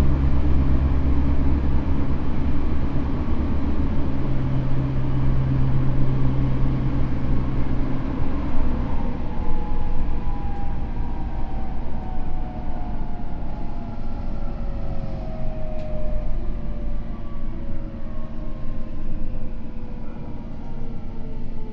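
Tokyo Metro N05 series train with Hitachi IGBT-inverter traction motors, heard from inside the car: heavy wheel-and-rail rumble eases about eight seconds in. Then a whine from the motors falls steadily in pitch as the train slows under braking toward the next station.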